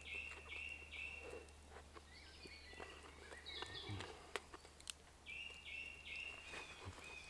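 Faint woodland birdsong: a bird repeats a short, clear, high note several times in a row at the start and again near the end, with other birds chirping in between. Faint scattered clicks run underneath.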